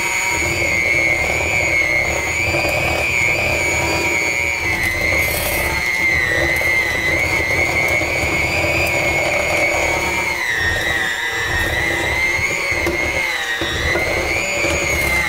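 Electric hand mixer running, its beaters churning stiff cookie dough as the flour is mixed into the butter and sugar. A steady, high motor whine that drops slightly in pitch about ten seconds in.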